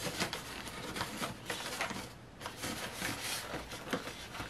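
Fingernails picking and scratching at clear packing tape on a cardboard box, a run of faint scratchy clicks and rustles as the tape refuses to lift, with a sharper tap near the end.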